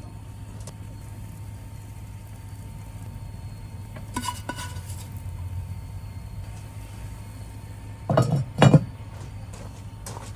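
Cookware and utensils clinking and clanking: a light clink about four seconds in, then two louder clanks in quick succession near eight seconds, over a steady low hum.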